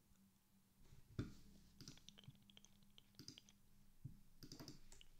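Faint, irregular clicking of a computer keyboard and mouse, with one louder knock about a second in.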